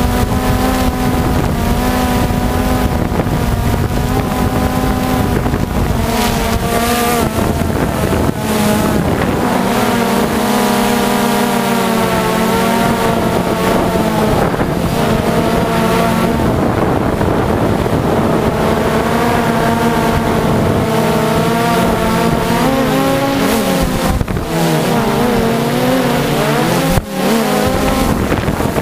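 A DJI quadcopter's electric motors and propellers whining, heard from its own onboard camera, several tones shifting in pitch as the motors change speed, with wind noise on the microphone. The pitch wavers more in the last few seconds.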